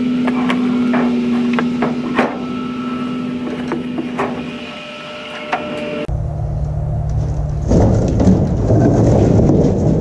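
A heavy metal wood-burning furnace being worked off a truck bed on rollers: a steady mechanical hum under a string of knocks and clanks. About six seconds in, the sound cuts abruptly to a loud, low rumbling.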